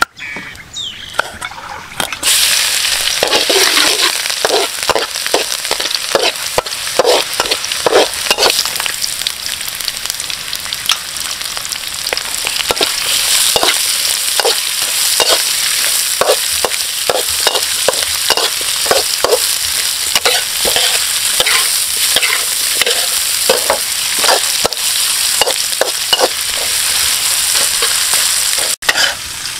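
Chicken offal frying in hot oil, sizzling steadily, while a utensil stirs and scrapes the pan in quick repeated strokes. The sizzle starts about two seconds in and cuts out for a moment near the end.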